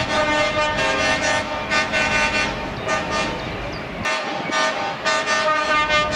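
Truck air horns sounding in quick repeated blasts, about two to three a second, with a low rumble underneath that drops away about four seconds in.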